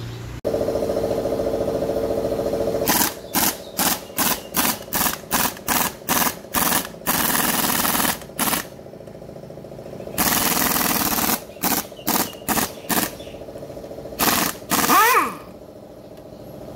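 A machine running steadily, with a series of short hissing blasts about two a second and a few longer ones.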